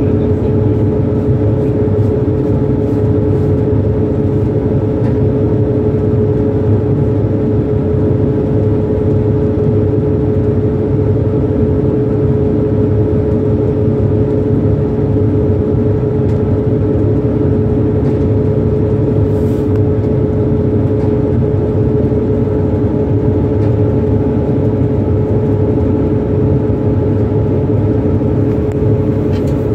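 Hydrofoil's engines running steadily, a loud constant drone with a steady hum on top, over the rush of the churning wake.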